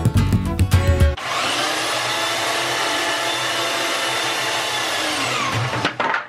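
Background music, then about a second in it gives way to a handheld electric router running at full speed, a steady high-pitched whine, moulding a reclaimed wooden board. Just before the end its pitch falls as the motor winds down, and the sound cuts off.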